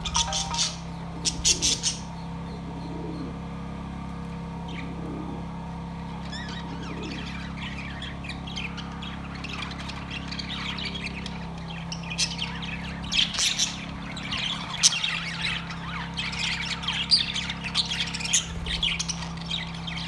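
A flock of budgerigars chirping, chattering and squawking, with a short flurry at the start, only scattered calls for the next few seconds, then busier chatter from about six seconds in. A steady low hum runs underneath.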